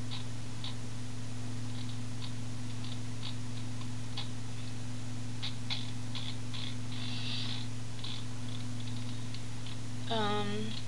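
Sparse, irregular light clicks from a computer keyboard and mouse being worked, over a steady low hum. A short hummed vocal sound comes near the end.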